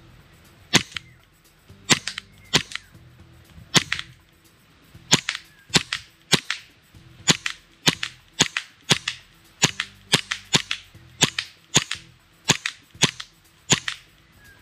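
Novritsch SSP18 gas blowback airsoft pistol, a Glock 18 replica running on green gas, firing single shots at a steady pace of one or two a second, about twenty in all. Each shot is a sharp crack, often with the slide's blowback clack close behind.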